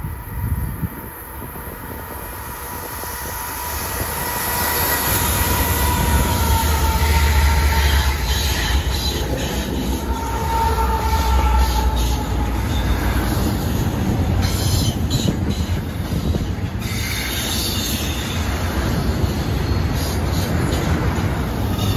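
BNSF double-stack intermodal freight train passing on a curve: the rumble of its several diesel locomotives builds over the first several seconds as they go by, then the container cars roll past, with wheels squealing on the curved track.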